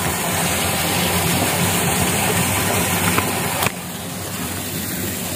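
A steady low mechanical hum under a hiss. The hiss drops off suddenly about two thirds of the way through.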